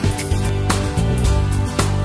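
Background music with sustained instrumental notes and a strong beat about once a second.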